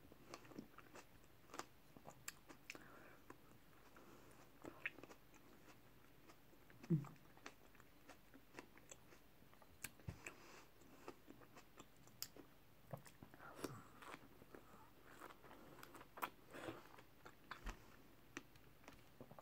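Faint close-up eating sounds of a person biting and chewing strawberries: soft chewing with scattered small clicks and smacks, and a brief low hum about seven seconds in.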